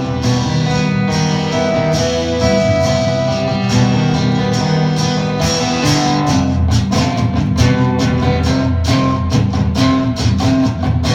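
Live acoustic band playing an instrumental passage with no vocals, led by guitar; the strokes grow busier about six seconds in.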